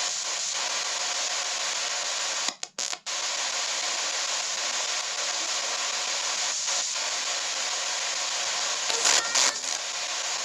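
S-Box ghost box sweeping radio frequencies: a steady hiss of static, cutting out briefly about two and a half seconds in and giving a louder crackle near the end.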